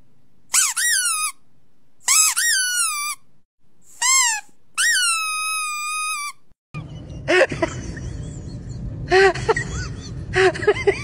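A series of high, clean squeaks played back: five in about six seconds, each rising then falling in pitch, the last one longer and sliding slowly down. After a sudden change about seven seconds in, a steady low hum carries shorter, lower rising-and-falling cries.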